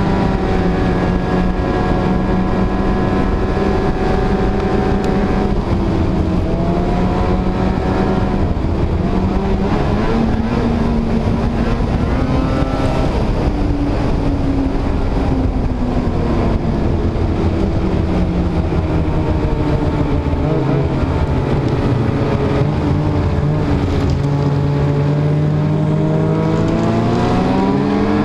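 Snowmobile engine running under way, its pitch sinking and climbing several times as the throttle is eased and opened, and rising again near the end, over a steady low rumble.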